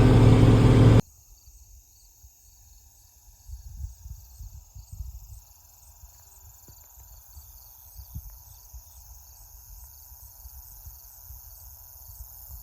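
Crickets chirping steadily in a quiet evening field, with low wind rumble on the microphone. The first second is the loud drone of a farm machine's engine, which cuts off suddenly.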